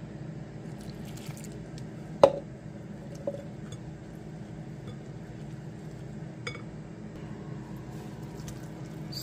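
Thick vegetable-and-flour batter being whisked in a glass bowl: soft squishing of the wet mix, with one sharp clink of the whisk against the glass about two seconds in and a few lighter ticks later. A steady low hum runs underneath.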